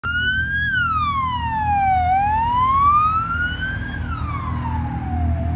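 Police car siren wailing, its pitch sweeping slowly up and down, over the low steady running of vehicle engines.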